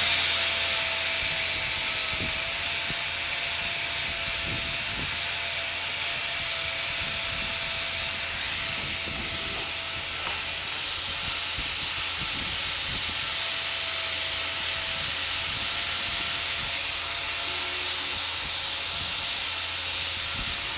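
Welding: a steady, unbroken high hiss with a low hum underneath.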